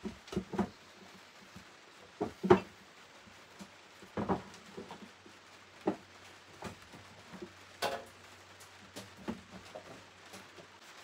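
Scattered light knocks and taps from handling a wooden nameboard and brush during painting, irregular and about a dozen in all, the loudest about two and a half seconds in, over a faint steady hum.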